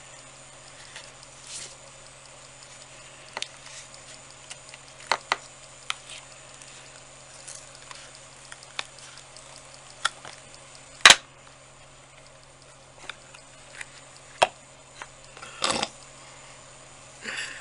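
Scattered small clicks and taps of objects being handled on a work surface. The loudest is a single sharp click about eleven seconds in, and there are brief rustles near the end.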